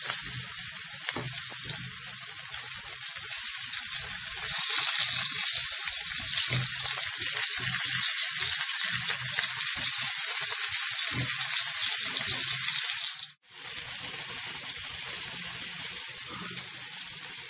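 Chopped vegetables frying in a pan: a steady loud sizzle with small crackles. It breaks off briefly about 13 seconds in and comes back quieter.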